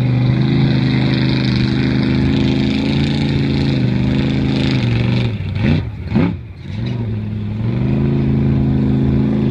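Mega truck engine running hard at a steady pitch through the mud. About five seconds in the pitch drops, there are two quick revs, and then the engine settles back to a steady pitch.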